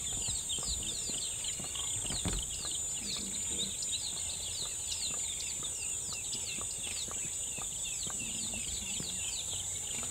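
Small birds chirping in a dense continuous chorus of short, overlapping falling notes, over a steady high-pitched hum.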